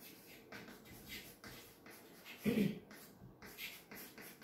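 Chalk writing on a chalkboard: a run of short strokes and taps as letters are written, with one brief, louder low sound about two and a half seconds in.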